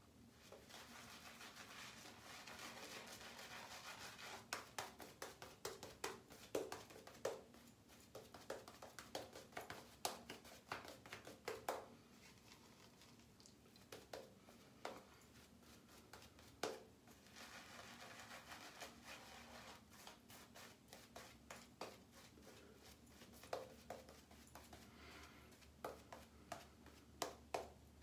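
Faint wet swishing of a shaving brush working lather over the face, with many small scattered clicks and crackles as the bristles and foam move.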